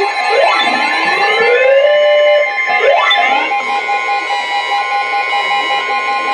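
Overlapping electronic emergency alert tones: siren-like rising sweeps over steady tones for the first three seconds or so, then steady tones with a short beep about once a second.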